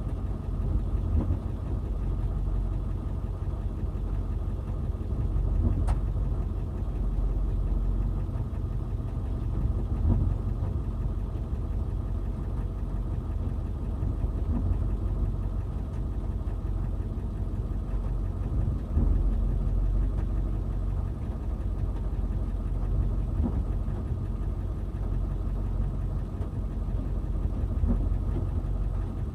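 Backhoe's diesel engine running steadily for the whole stretch, with small rises and dips in load as it works.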